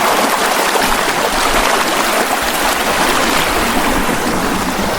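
Glacier-fed mountain stream flowing, a steady, even rush of water.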